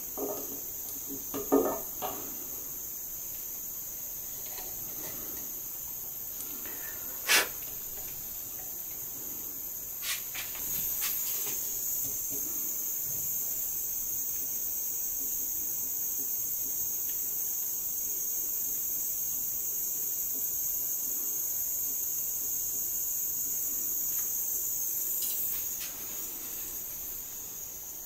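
Steady high-pitched whine, louder from about ten seconds in until about twenty-five seconds, with a few light clicks and taps of wires being handled near the start and one sharper tap about seven seconds in.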